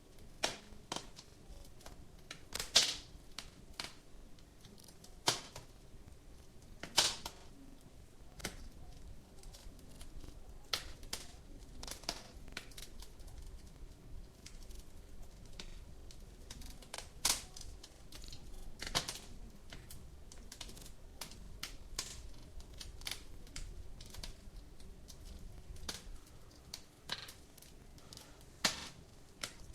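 Wood fire crackling, with irregular sharp pops over a faint hiss; the loudest pops come about three and seven seconds in.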